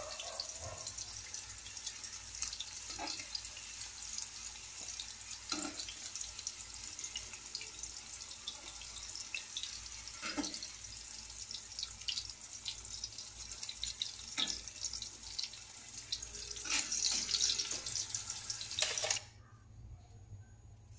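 Sweet potato sticks sizzling and crackling in hot oil in an aluminium wok, with a few knocks of metal tongs against the pan as the pieces are lifted out. The sizzling stops suddenly near the end.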